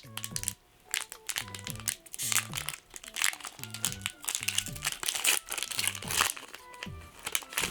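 Foil wrapper of a Pokémon TCG booster pack crinkling and crackling in the hands as it is opened. Background music with a repeating bass line plays throughout.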